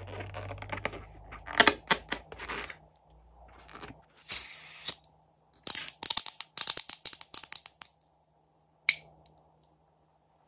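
A liquid-filled balloon squeezed by hand, its white filling squirting and spluttering out of the neck into a steel bowl of slime in several crackly bursts, each a rapid run of pops.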